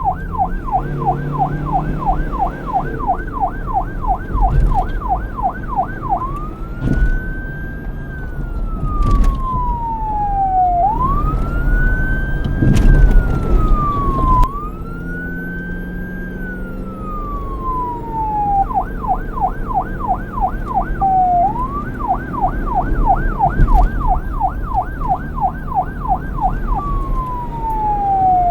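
Police car electronic siren switching between modes: a fast yelp of about four sweeps a second for the first six seconds, then a slow wail that rises quickly and falls slowly three times. It returns to the fast yelp, with a brief dip, and ends on a falling wail. A low engine and traffic rumble runs beneath.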